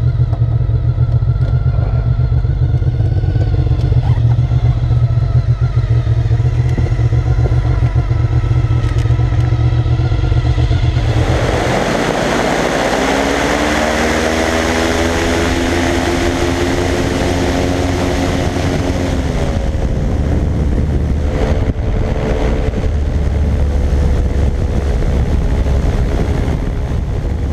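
Honda VFR750 V4 engine of an ultralight trike driving a belt-driven Kievprop propeller. It runs low while taxiing on grass, then about 11 seconds in it is opened up suddenly to take-off power, its pitch rising for several seconds before settling into a steady climb with propeller and wind rush.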